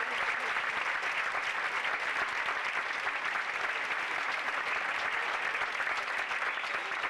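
Theatre audience applauding steadily, many hands clapping.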